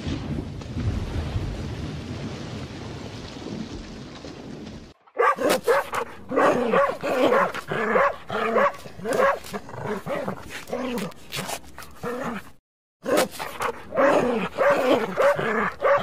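A steady rushing noise for about five seconds, then a litter of puppies whimpering and yipping in quick, overlapping high calls. After a brief break near the end, a dog's yelping and whimpering continue.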